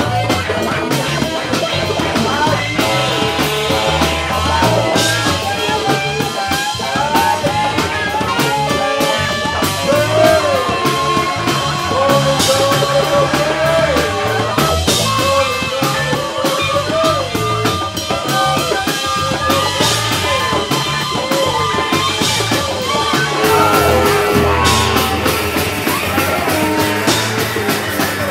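Live band playing with drum kit and electric guitars, while a trumpet plays a wavering lead melody over the beat.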